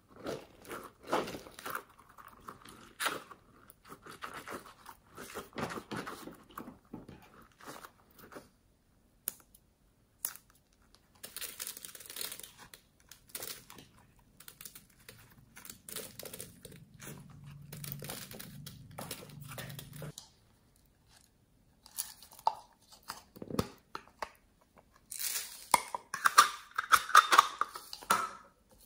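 Hands working foam beads and squishy toys through slime in a glass dish: irregular crackling, crunching and squishing, with pauses. The crackling is densest and loudest near the end.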